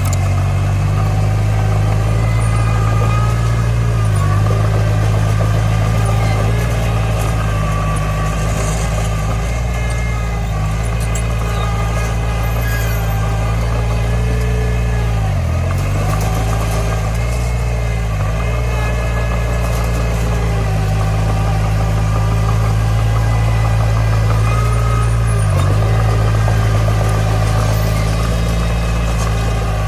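Komatsu D20 bulldozer's diesel engine running steadily, its note briefly dipping about four times.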